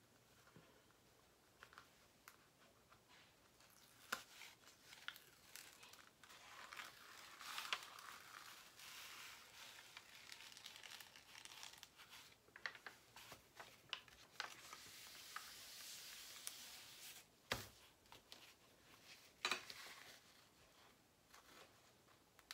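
Plastic cover film on a diamond painting canvas crinkling and rustling faintly as it is peeled back by hand from the canvas's adhesive, with small crackles and a couple of sharper snaps near the end.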